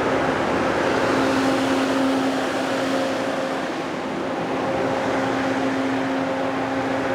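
Kohler 1,000 kW diesel generator with an MTU engine running steadily during a load bank test, a dense even machine noise with a steady hum whose tone fades in and out.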